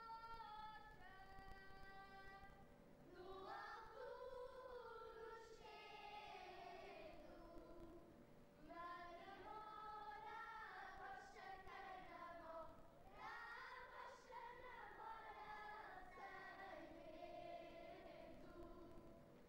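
Children's choir singing cante alentejano unaccompanied: one voice holds the opening notes, and the whole group joins about three seconds in, singing long, drawn-out phrases.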